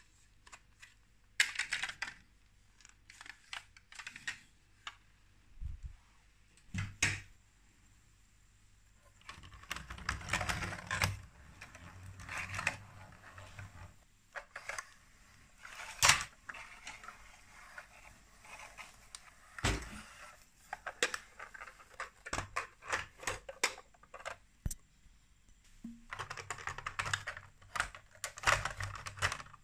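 Hard plastic Lego Duplo bricks and toy truck parts being handled and fitted together: scattered clicks and taps, with a couple of longer stretches of rattling clatter.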